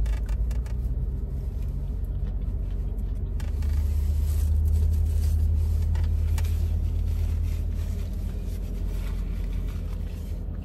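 Low vehicle rumble that swells a few seconds in and eases off toward the end, with a few faint clicks over it.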